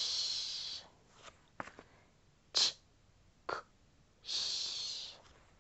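A woman saying phonogram sounds without voicing them: a drawn-out 'sh' hiss, then a short 'ch' and a short 'k', then a second drawn-out 'sh', the three sounds of the 'ch' phonogram.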